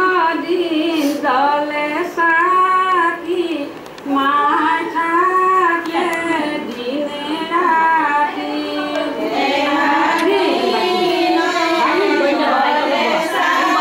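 Women's voices singing a slow melody with long, held notes, with a short pause in the singing about four seconds in.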